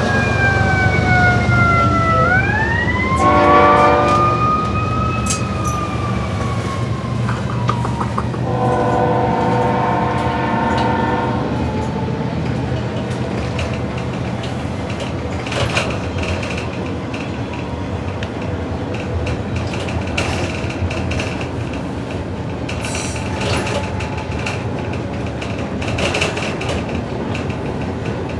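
A siren wails, falling, then rising and falling again over the first eight seconds, while a CN freight locomotive's horn sounds two chord blasts, a short one about three seconds in and a longer one from about nine to eleven seconds. After that, a steady rumble of the bus and the passing double-stacked container train, with scattered clicks.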